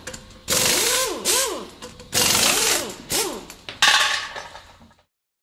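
Mechanical whirring, like a small power tool, in three bursts about a second and a half apart, its pitch swooping up and down within each burst.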